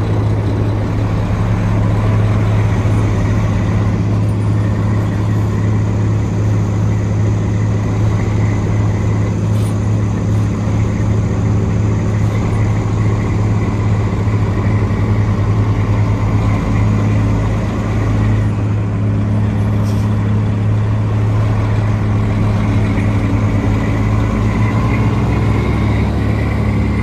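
Detroit Diesel Series 60 11.1-litre inline-six diesel in a 1991 Volvo road tractor, running at low, steady revs as the truck creeps along.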